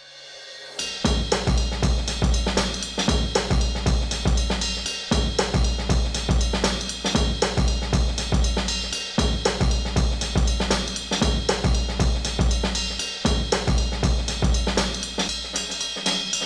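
Background music with a full drum kit (bass drum, snare, hi-hat and cymbals) playing a steady beat, coming in loud after a short fade-in about a second in.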